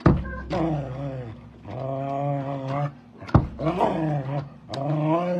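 A dog making long vocal cries, about four in a row, each lasting around a second, some sliding down in pitch and some rising then falling.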